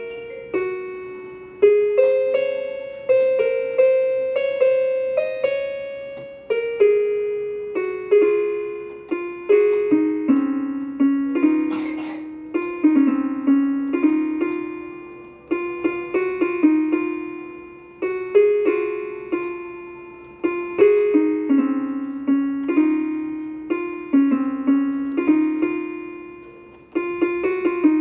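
Casio electronic keyboard playing a slow melody on its harp voice, one note at a time, each note plucked and fading away.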